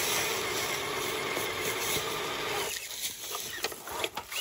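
ROC Hobby Willys Jeep RC crawler's electric motor and gearbox whirring as it climbs over a rock, tyres scraping on stone and pine needles. The whir drops away about two and a half seconds in, leaving a few clicks and scrapes.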